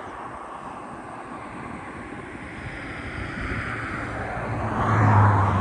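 Strong wind rushing over the microphone with road traffic behind it, building to a vehicle passing close near the end, its low engine hum loudest there.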